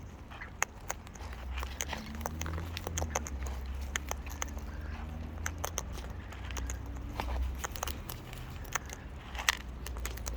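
Cockatoo's beak biting and crunching close by: irregular sharp cracks and clicks over a low rumble.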